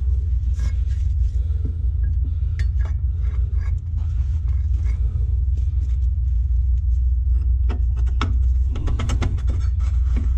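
Metal parts clicking and knocking as a motorcycle's rear wheel, spacer and axle are fitted by hand, over a steady low rumble. A quick run of clicks comes near the end.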